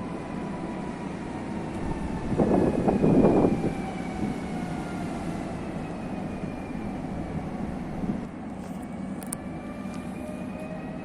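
A train at a station platform: whining drive tones slide slowly down in pitch, with a louder rumbling burst about three seconds in, and near the end new whines rise in pitch as the train gathers speed.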